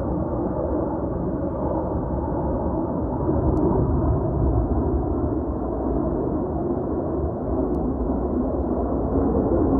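Engine noise of Blue Angels F/A-18 Hornet jets flying overhead at a distance: a steady low rumble that swells slightly about three seconds in.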